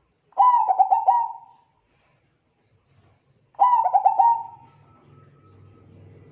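Zebra dove cooing: two phrases about three seconds apart, each a quick run of five or six rolling coo notes lasting about a second.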